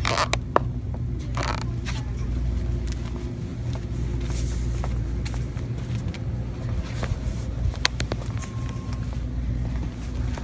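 Steady low rumble of a car in motion, engine and road noise as heard inside the cabin, with scattered light clicks and a few brief rustles.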